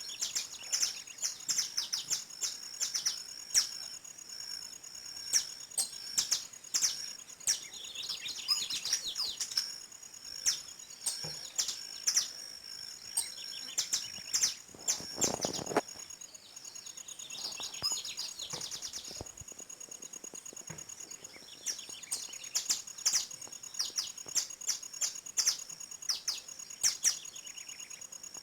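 Several small songbirds chirping and trilling in quick, overlapping calls over a steady high-pitched hum. A brief, lower, louder sound comes about halfway through.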